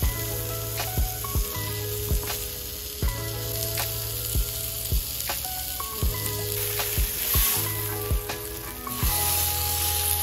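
Background music with a steady beat and held notes, over a steady high sizzling hiss of food frying in a pan.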